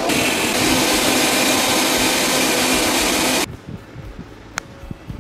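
Preethi mixer grinder running steadily, beating eggs in its steel jar, switched off abruptly about three and a half seconds in. About a second later comes a single sharp clink.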